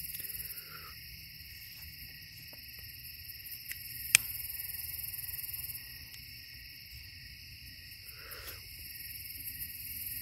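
Steady high-pitched chorus of night insects, with a single sharp click about four seconds in and a faint short call near eight seconds.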